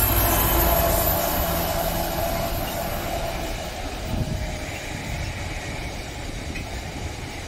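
An Iarnród Éireann 201 class diesel locomotive goes by hauling a container freight train. Its engine drone fades within the first couple of seconds, giving way to the rumble and wheel noise of the container wagons rolling past, growing steadily fainter as the train moves away.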